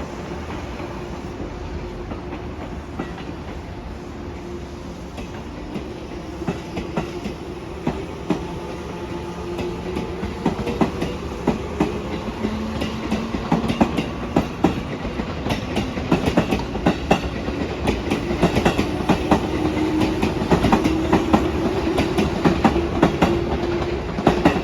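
Eight-car 415 series electric multiple-unit trains passing, wheels clattering over rail joints above a steady rumble. The clatter starts sparse about six seconds in, then grows denser and louder toward the end.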